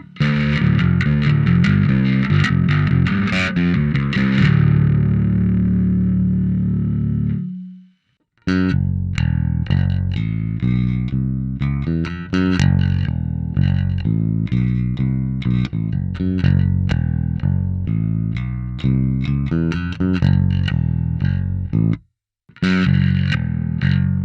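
Electric bass (an Ibanez Jazz bass) played through a GUMA Drive CMOS bass overdrive pedal into an Ampeg SVT amp profile, giving a gritty, distorted tone. A riff gives way to a held note that rings and fades out about seven seconds in. After a short silence, a busy picked riff follows, with one brief stop near the end.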